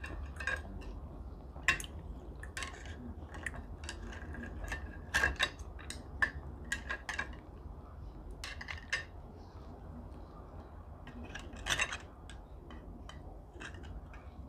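Chopsticks and a metal spoon clinking and scraping against a ceramic bowl while eating: irregular sharp clinks, the loudest about two seconds in and around five seconds, over a low steady hum.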